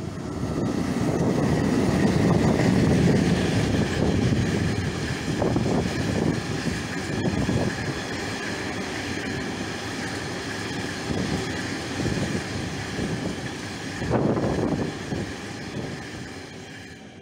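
Freight train passing close by behind two electric locomotives: a heavy rolling rumble, loudest a few seconds in as the locomotives go by, then a long string of wagons rolling past with a steady high thin tone over the wheel noise. A brief louder surge comes about fourteen seconds in, and the sound fades near the end as the last wagons pass.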